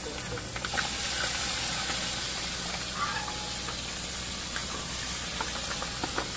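Pork deep-frying in hot oil in a large wok, a steady sizzle, with a few scrapes and clinks of a metal spatula stirring it.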